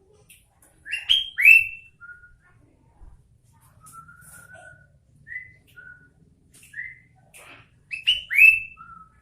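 Sooty-headed bulbul singing in short, clear whistled phrases. The song is loudest twice, about a second in and again near the end, with softer single notes between.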